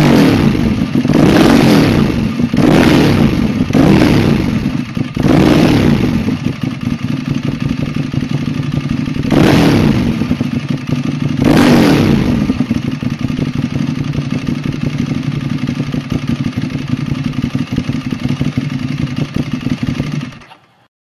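Ducati 1098's L-twin engine breathing through a MIVV Suono slip-on exhaust, blipped up five times in quick succession, then idling with two more rev blips, and idling steadily until the sound cuts off near the end.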